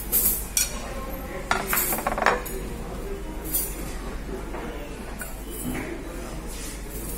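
Metal spoons clinking against a clay biryani handi and china plates as the rice is served out. There is a quick run of sharp clinks in the first two and a half seconds, then a few lighter taps.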